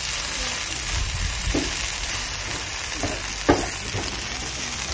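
Vegetables sizzling as they sauté in a non-stick frying pan while a spatula stirs them, with a few knocks of the spatula against the pan, the loudest about three and a half seconds in.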